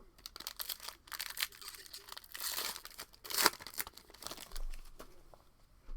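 Crinkling and tearing of a trading-card pack's wrapper as it is ripped open and handled, in a run of rustles that peaks a little past the middle and dies down near the end.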